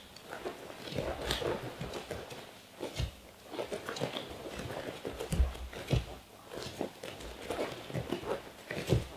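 Footsteps and shuffling on padded gym mats, with several dull thuds as two gloved fighters step and drop their level.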